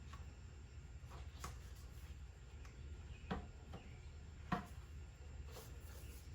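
Faint clicks and small knocks of a rubber PCV hose and its clamp being worked back onto the valve, with two sharper clicks a little past the middle, over a low steady hum.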